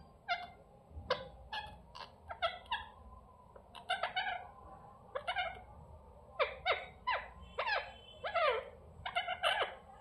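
Alexandrine parakeets calling: a quick run of short calls that each fall in pitch, about two a second, with brief pauses between bouts.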